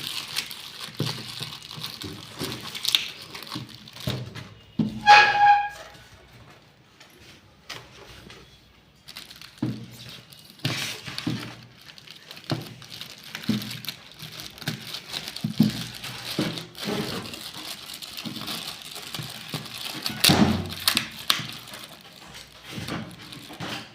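Irregular knocks, taps and rustling as objects are handled, with a brief high-pitched sound about five seconds in and a louder cluster of knocks near the end.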